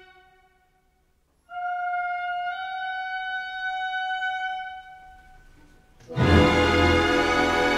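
Orchestral film score. One long held note swells in after a brief silence and fades away, then about six seconds in the full orchestra comes in suddenly and loudly.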